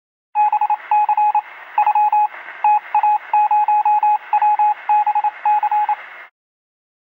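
Morse code sound effect: a single beep tone keyed on and off in rapid short and long beeps over a steady band of radio static. It cuts off suddenly near the end.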